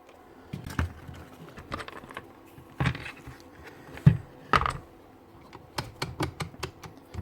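Irregular clicks and light knocks of a cordless magnetic drill being handled and its parts pulled at, with a few heavier knocks near the middle.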